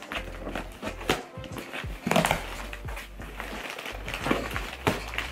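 Packing tape being picked at and pulled off a cardboard shipping box, with several short, sharp rips, over background music.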